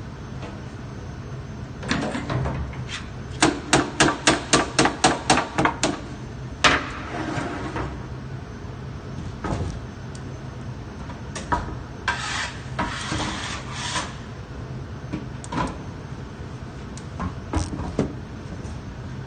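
Steady low hum of a commercial bakery oven's burner, broken by a quick run of about a dozen knocks a few seconds in, then rasping, scraping sounds and scattered clicks of work going on.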